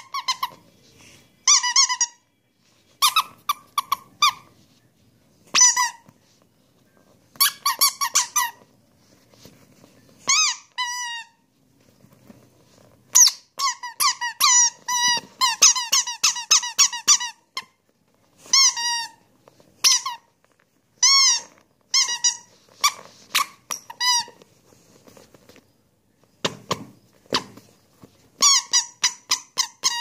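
Squeaky rubber toys, a Winnie the Pooh figure and a yellow rubber duck, squeezed again and again, giving quick runs of short high squeaks with gaps between.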